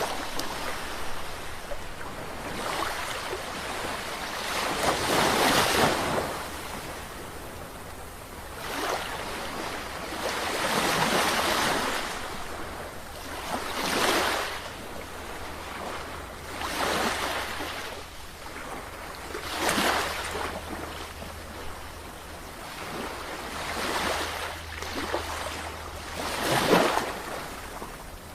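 Sea waves breaking and washing in, one surge every few seconds with quieter hissing between. The strongest surge comes near the end.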